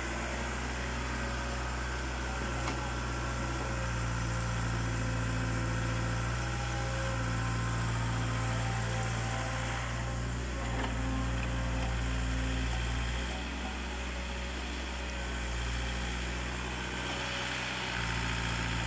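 Kato hydraulic excavator's diesel engine running steadily as the machine digs and swings. Its low hum shifts with load, weakening for a few seconds past the middle and coming back near the end.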